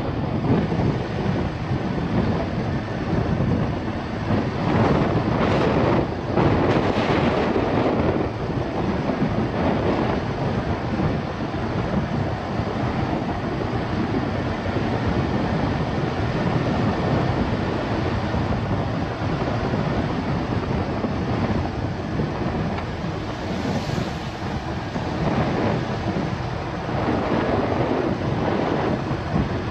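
Steady road and wind noise from a car being driven, swelling louder a few times.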